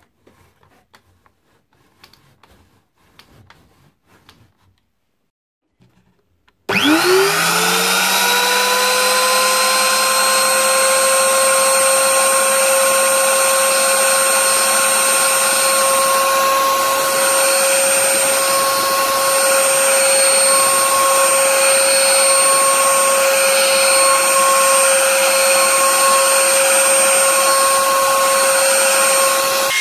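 A few faint clicks, then an electric trim router switches on about seven seconds in. It spins up to speed within a moment and runs with a steady high-pitched whine while its bit carves a spirograph pattern into a round wooden disc.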